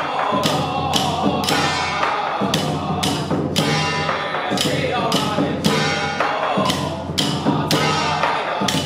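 Traditional Taiwanese temple ceremony music: cymbals and drums strike a steady beat about twice a second, under a melody.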